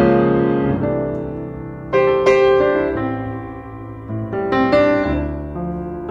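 Background piano music: slow chords, each struck and left to ring and fade before the next.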